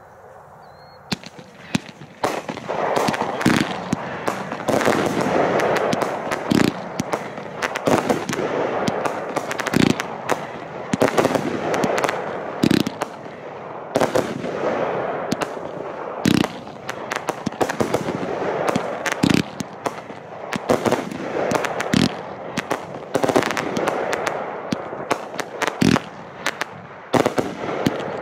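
Fireworks going off in a long barrage: a continuous crackling hiss studded with many sharp bangs, starting about a second in.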